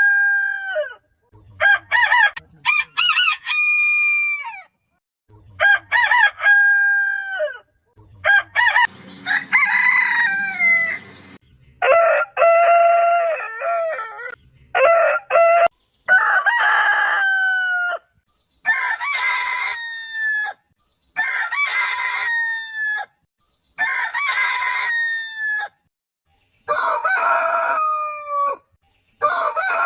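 Roosters crowing, about a dozen crows in quick succession, each drawn out and ending on a falling note, cut apart by sudden short silences.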